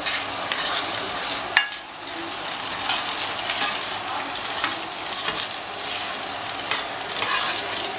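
Diced onions sizzling in hot oil in a frying pan while a spatula stirs and scrapes them around the pan. There is one sharp knock about one and a half seconds in.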